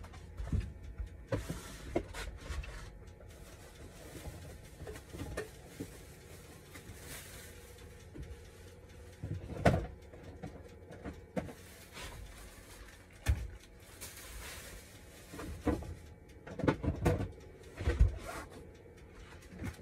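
Scattered knocks, clicks and clatter of someone handling things in a small kitchen, irregular and coming more often near the end, over a faint steady hum.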